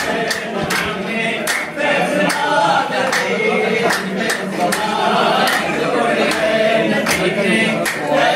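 A group of men singing a devotional chant together, with hand clapping about twice a second.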